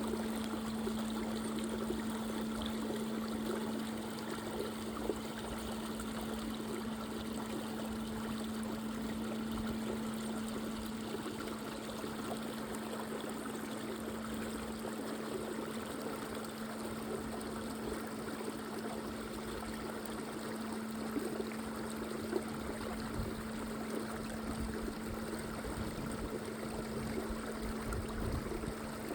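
Water running and trickling, with a steady low hum throughout and a few brief faint knocks.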